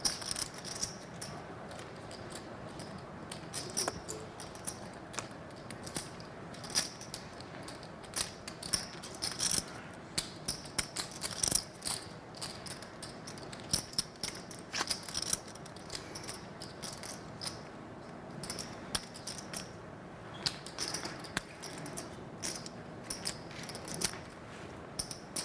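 Clay poker chips clicking and clacking as they are handled and riffled at the table: a long run of irregular sharp clicks, several a second.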